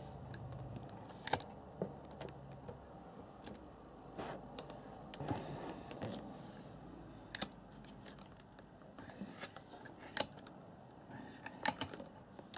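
Handling noise: scattered sharp clicks and light taps a second or more apart, over a faint hiss, as hands touch the plastic RC buggy and the camera is moved around it.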